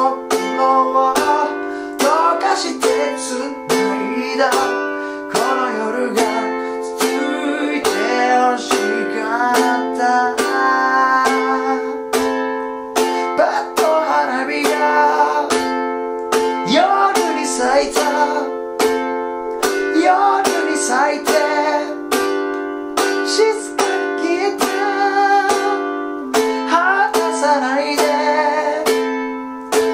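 A man singing in Japanese while strumming chords on a ukulele, working through simple changes such as F, G7, Am and Em7 in a steady strum.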